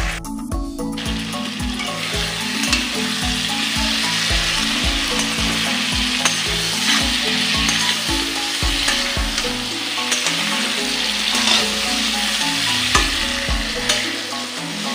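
Potato, ridge gourd and green chilli pieces sizzling in oil in a kadai, stirred with a spatula that clicks and scrapes against the pan now and then.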